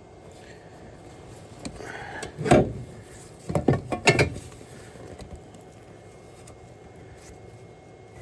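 Clunks and clatters of parts being handled during hand work on an engine: one knock about two and a half seconds in, then a short cluster of rattling knocks about a second later.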